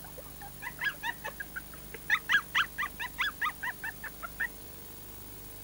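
Spaniel puppies yapping: a quick run of short, high-pitched yips that starts about a second in, is loudest in the middle, and stops near the end.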